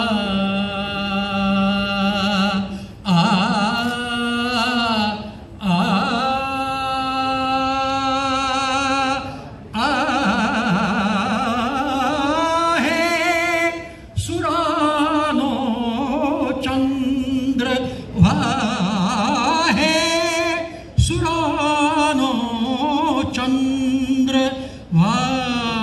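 A man singing solo into a handheld microphone, holding long notes with a wavering vibrato in phrases a few seconds long.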